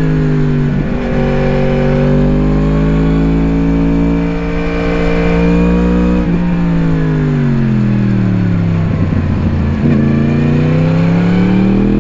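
2017 Yamaha MT-10's crossplane inline-four with an Akrapovič slip-on exhaust, heard onboard while riding. The pitch drops with a gear change about a second in, then holds and rises slightly; halfway through the throttle rolls off and the pitch falls gradually on the overrun, before the engine pulls and rises again near the end.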